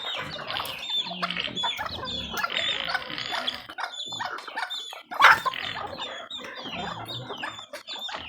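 Backyard chickens clucking, with many short high chirps and cheeps, and one loud sharp squawk about five seconds in. Low grunts sound underneath on and off.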